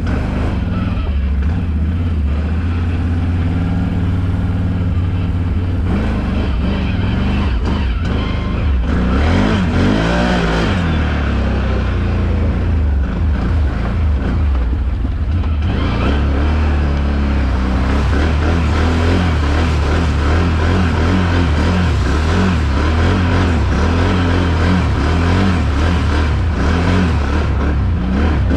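ATV quad bike engine running steadily while riding. About ten seconds in, the revs rise and fall.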